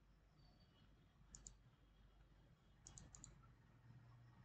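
Near silence with faint computer mouse clicks: a quick pair about a second and a half in, then a cluster of about four clicks around three seconds in.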